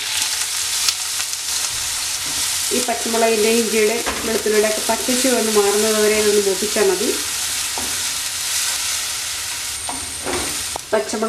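Chopped green chillies, ginger and garlic sizzling as they hit hot oil in a non-stick wok, then frying with a steady hiss while a wooden spatula stirs and scrapes them around the pan.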